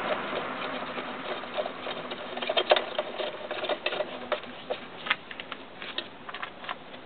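A screwdriver working the screws of a 50cc scooter's variator cover: a run of light, irregular metal clicks and scrapes.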